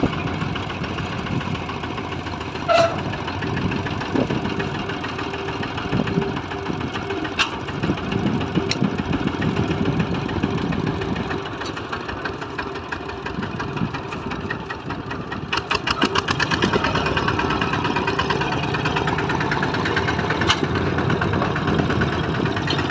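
Two-wheel hand tractor's engine running steadily with a fast, even chugging, getting a little louder about two-thirds of the way through.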